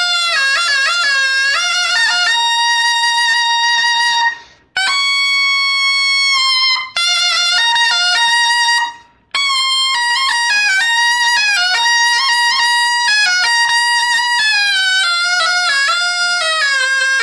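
Taepyeongso, the Korean double-reed shawm with a metal bell, playing a solo melody: long held notes with quick ornamental turns and slides between them. It breaks off for a short breath twice, about four and a half and nine seconds in.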